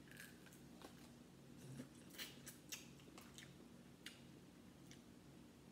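Faint, irregular clicks and snaps of cooked shellfish shell, crab leg or crawfish, being cracked and peeled apart by hand.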